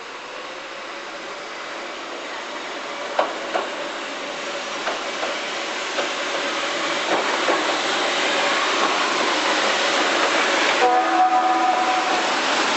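Keihan 600-series electric train approaching on street-running track, growing steadily louder, its wheels clicking over rail joints. Near the end it sounds one short horn blast.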